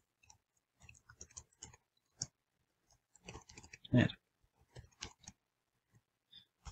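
Computer keyboard keys clicking irregularly as code is typed, with one louder knock about four seconds in.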